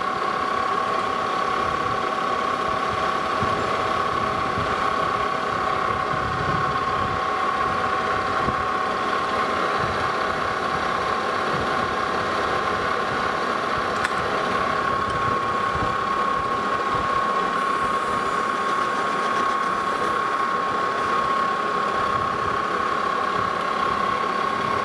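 Lodge and Shipley metal lathe running under power, its tool taking a light facing cut across the end of a rusty 2-inch steel bar that has been oiled. The sound is steady, with a high whine over the machine's running noise.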